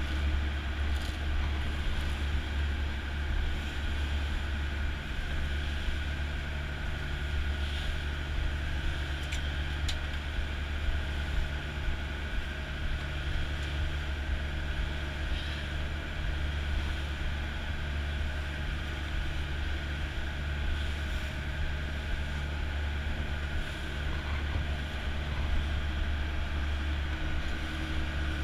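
Sport-fishing boat's engine running steadily under way, a constant low hum heard from inside the wheelhouse cabin, with a steady hiss of water and wind over it.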